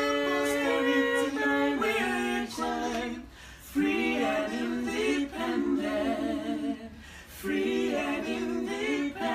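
A small vocal group singing a cappella, holding sustained chords in harmony, with two short breaks about three and seven seconds in.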